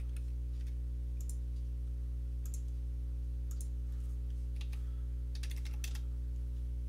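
Scattered computer mouse clicks, then a quick run of keyboard keystrokes about five and a half seconds in as a dimension value is typed, over a steady low electrical hum.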